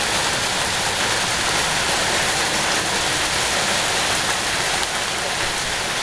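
Hail mixed with heavy rain pelting a wooden deck and fence, a steady, dense noise of countless small hits.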